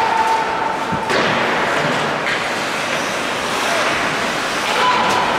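Ice hockey play in an indoor rink: a steady wash of arena noise with two sharp knocks about a second apart, typical of play against the boards.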